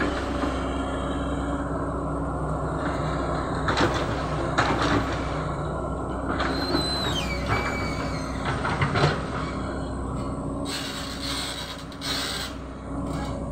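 Caterpillar 312 hydraulic excavator's diesel engine running steadily as it swings its boom and works the bucket, with several sharp metal clanks and a brief high squeal that falls in pitch midway. Near the end the bucket scrapes into the sandy soil.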